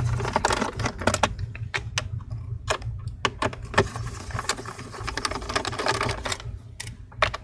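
Phillips screwdriver backing screws out of a laptop's plastic bottom cover: a run of small, irregular clicks and ticks.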